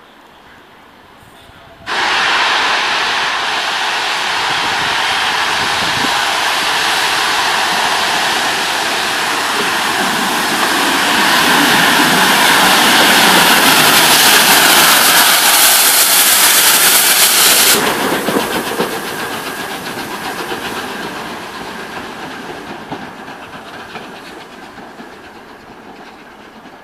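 Steam locomotive, LNER Peppercorn A1 Pacific No. 60163 Tornado, hissing loudly as it passes: the steam hiss starts suddenly about two seconds in, swells, then cuts off abruptly, leaving the sound of the locomotive and train fading as they draw away.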